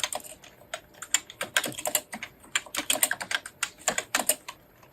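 Computer keyboard being typed on fast, Japanese text in the NICOLA thumb-shift kana layout: quick runs of key clicks broken by short pauses.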